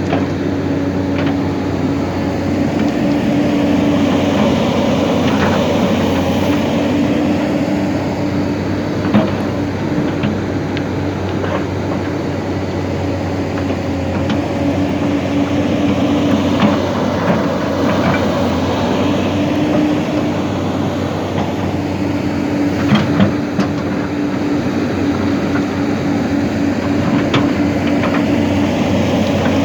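Hyundai excavator's diesel engine running steadily under load, with scattered sharp metallic clanks.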